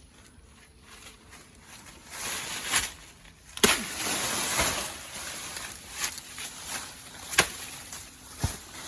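Plantain being cut: rustling of leaves and stalk with a few sharp knocks, the loudest about a third of the way in, followed by a second or so of heavy rustling.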